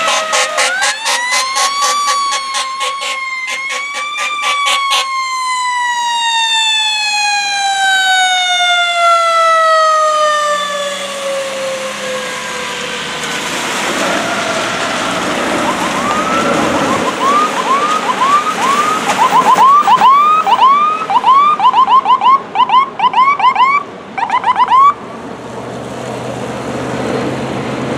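Fire apparatus siren winding up and holding a high wail, then falling steadily in pitch over about eight seconds, like a mechanical siren coasting down as the truck pulls away. From about halfway through, a deputy chief's SUV electronic siren yelps in rapid rising sweeps, two or three a second, growing louder as it approaches, then cuts off suddenly near the end.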